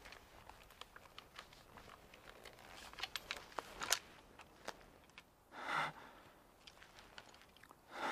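Faint crunching footsteps with small scattered clicks, then two heavy exhaled breaths, one a little past halfway and one at the very end.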